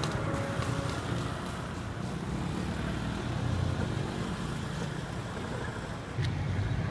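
Street traffic: cars' engines and tyres running by in a steady low rumble, which grows louder about six seconds in as a taxi draws up close.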